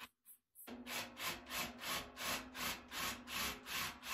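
A hand tool is worked back and forth on the stove's steel, about three rasping strokes a second, starting just under a second in. A low steady ringing runs under the strokes.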